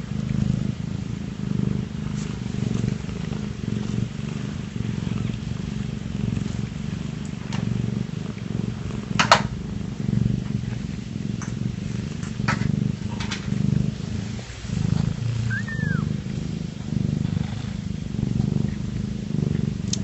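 A queen cat in labour purring steadily, the rumble swelling and fading with each breath, between her first and second kittens. A sharp click about nine seconds in and a brief high squeak a few seconds before the end.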